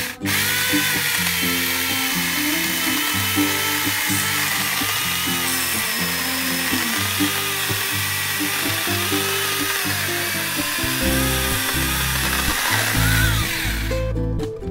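Cordless 6-inch electric mini chainsaw running steadily and cutting down through a hard shimatoneriko (ash) log, stopping near the end.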